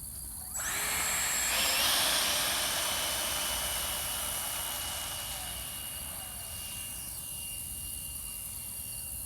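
Electric ducted fans of a Freewing F-18 RC jet whining in flight. The sound comes in suddenly about half a second in, is loudest around two seconds, then slowly fades, its high whine sinking a little in pitch.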